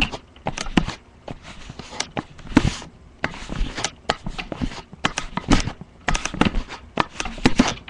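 Screwdriver and hands working stiff screws into a desktop computer's CPU fan mount: irregular clicks, knocks and short scrapes of metal and plastic as the screws resist tightening.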